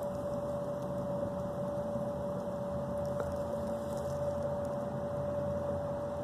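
Steady background hum and hiss with a constant tone running through it, unchanging and with no distinct events.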